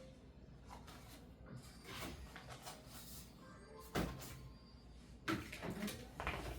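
Handling noises of things being moved about by hand: rustling and light bumps, with two sharper knocks about four and five seconds in.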